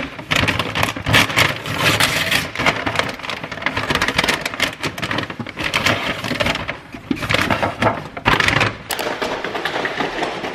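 Brown paper takeout bag crinkling and rustling in irregular crackles as it is unrolled and opened, and a plastic takeout container is pulled out of it.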